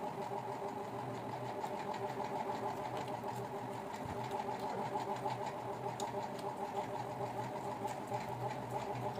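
A steady mechanical hum, with faint scattered clicks and smacks from people eating rice and fish with their hands.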